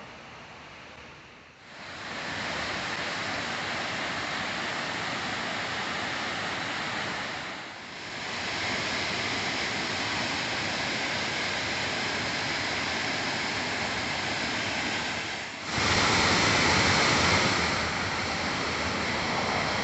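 Roadside waterfall, the water falling in a steady rush with no pitch to it. The sound dips briefly about one and a half seconds in and again about eight seconds in, and is louder for about two seconds near the end.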